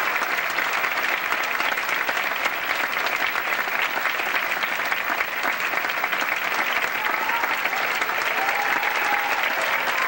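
Theatre audience applauding: dense, steady clapping from many hands during a curtain call.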